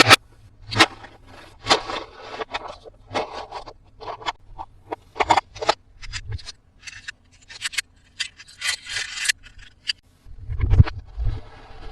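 Toys and their packaging being handled during an unboxing: irregular short scrapes, rubs and clicks, with a denser patch of scraping near the end.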